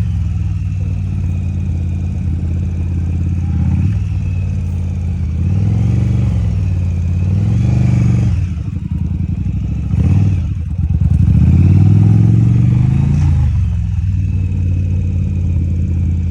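Yamaha motorcycle engine running at low speed, its pitch rising and falling several times as the throttle is opened and closed while the clutch and rear brake hold the bike to a crawl.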